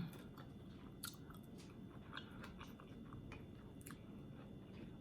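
Faint close-up chewing of juicy oxtail, with soft, irregular wet mouth clicks.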